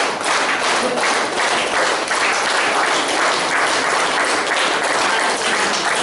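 Loud, steady, crackly noise of the applause kind, with no clear voice in it.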